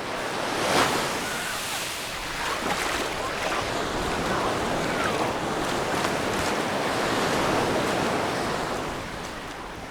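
Mediterranean sea waves breaking and washing up a sandy beach. There is a surge about a second in, a sustained wash through the middle and a fade near the end.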